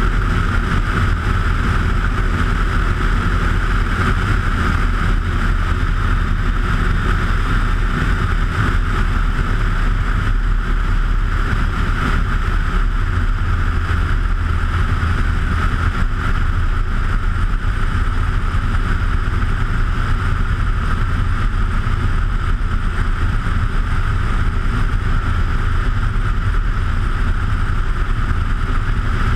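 Bushcaddy ultralight floatplane's engine and propeller running at a steady drone in flight, with air rushing past the camera mounted outside under the wing.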